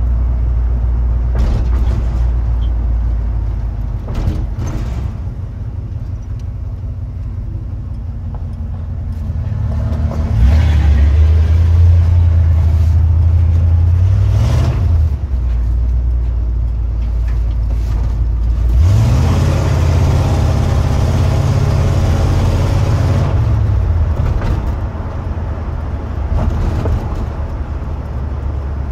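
A 1970 Ford pickup's engine running, heard from inside the cab. It is revved twice with the gas pedal, each time held up for about four to five seconds: once about ten seconds in and again about nineteen seconds in. Between the revs it drops back to a lower, steady run.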